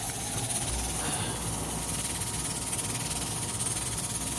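Steady hiss of steam escaping from the valve of a pressure cooker on a wood-burning stove, its weight spinning: the cooker is up to pressure and the rice is cooking.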